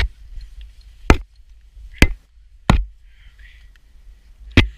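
Five sharp knocks against the steel tower members as a climber moves up the tower, over a low rumble of wind on the microphone.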